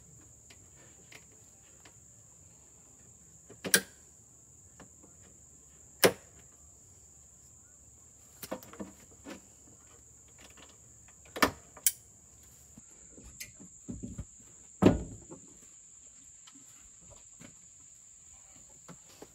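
Scattered sharp knocks and clicks of hand tools and parts being handled at a wooden basket bolted to an ATV's front rack, about half a dozen of them loud. A steady high insect drone runs underneath.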